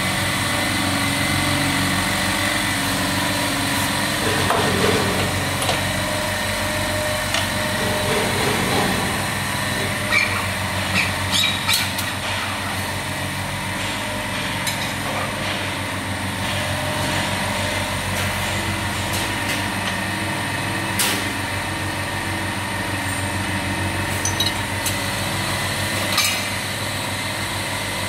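Steady hum of running machinery, with several sharp metal clinks and knocks as parts of the machine's film-handling assembly are taken off and fitted by hand, a cluster of them about ten seconds in and a few more later.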